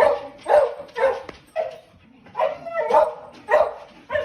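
A dog barking and yipping in short bursts, about two a second.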